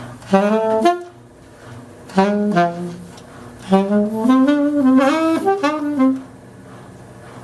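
Saxophone playing three short blues phrases, the last the longest, with bending notes. In the gaps a washing machine runs with a steady low hum.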